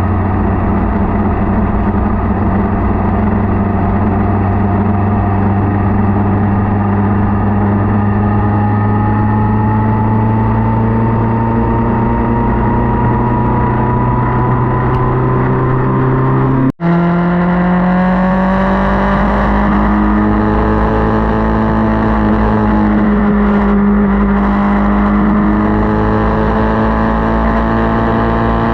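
Motorcycle engine running on the road with rushing wind and road noise, its pitch slowly rising as it accelerates. The sound cuts out for an instant about two-thirds of the way through, then the engine carries on, its pitch rising, dipping and rising again.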